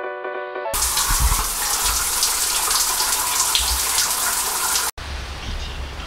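Shower running: water spraying from the shower head onto tiles. It starts abruptly under a second in, after a few notes of piano music, and cuts off sharply about a second before the end, giving way to quieter outdoor background noise.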